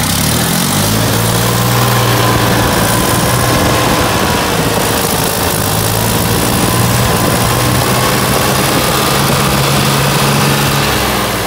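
Ford 3400 tractor's three-cylinder engine running steadily shortly after start-up, with the oil pressure up near 68 psi.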